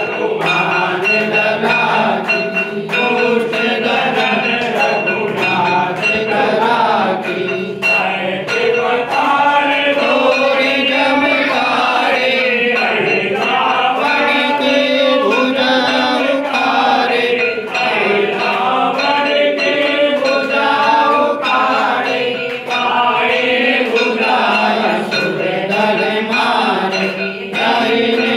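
A group of worshippers singing a devotional aarti hymn together in a chanting style, with sharp knocks sounding along with the singing.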